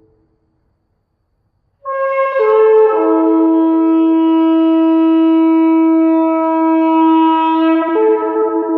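A shofar sounds one long blast, starting about two seconds in. It begins high, steps down twice to a low held note, then breaks up to a higher note near the end.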